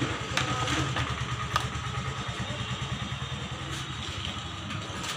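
A motor vehicle engine running at a steady idle, with a few light clicks over it.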